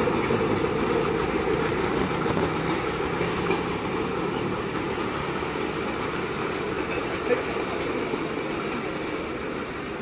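Small engines of two motorized rail trolleys running as they drive away along the track, a steady engine noise that slowly fades.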